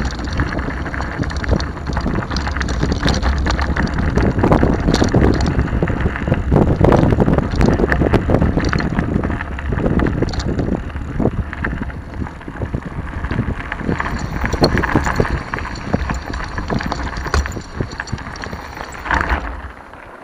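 Mountain bike rolling down a loose gravel dirt track: a continuous crunch of tyres on stones and rattle of the jolting bike, with wind buffeting the microphone. The noise eases off just before the end.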